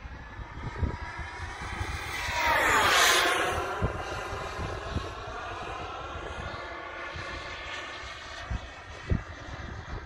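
Small turbine engine of a radio-controlled model jet whining as the jet makes a fast pass, loudest about three seconds in with its pitch dropping sharply as it goes by, then a steadier, quieter whine as it flies away.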